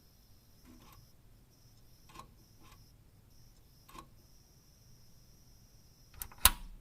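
Switches clicking: single faint clicks about one to two seconds apart, then a quick cluster of clicks near the end with one sharp, much louder snap.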